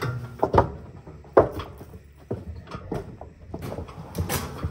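Heavy knocks and thumps on a wooden trailer deck as boots step onto the boards and hog carcasses are shifted and dropped. About five sharp knocks about a second apart, the loudest about a second and a half in.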